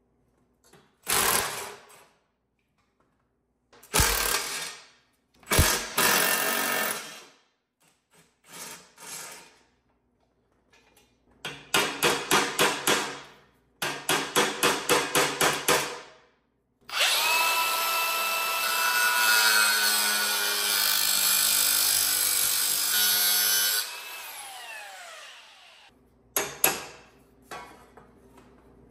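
Bolts being worked loose on a garden tractor's steel frame. A few sharp metal clanks, then two runs of rhythmic clicking at about three a second, then a cordless drill running steadily for about seven seconds before it winds down.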